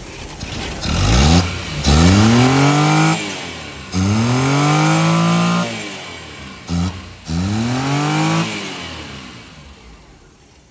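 Suzuki Alto's petrol engine, air cleaner off, revved by hand at the carburettor throttle: engine speed rises and falls back about five times, one of them a short blip, then drops back toward idle near the end.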